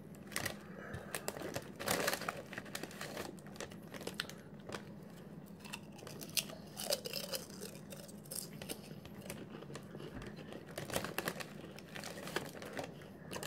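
Potato chips crunching as they are bitten and chewed, and a plastic chip bag crinkling as a hand reaches in for more near the end; quiet, irregular crackles.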